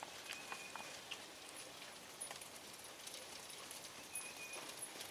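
Faint hoofbeats of harness ponies, a Haflinger and a miniature horse, at a working trot on arena footing, heard as scattered light clicks.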